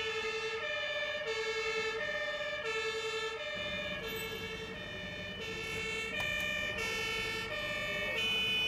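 German fire engine's two-tone siren (Martinshorn) sounding, switching steadily between a low and a higher note about every two-thirds of a second.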